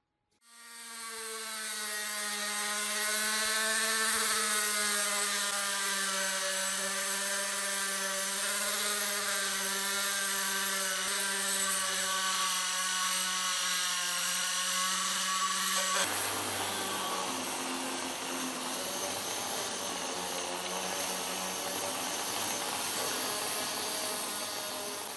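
Electric power tool motor running with a steady pitched hum. About two-thirds of the way in, the sound changes abruptly to a rougher, noisier grind.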